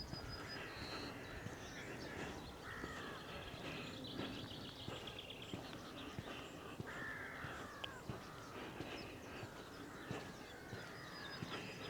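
Crows cawing repeatedly, the calls coming at irregular intervals, with small birds chirping and trilling more faintly behind them.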